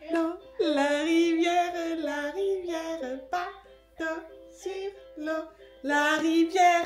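Electronic children's sound book playing a recorded nursery song: a sung melody over plucked-string accompaniment. The singing thins to short notes for a couple of seconds in the middle, then comes back strongly near the end.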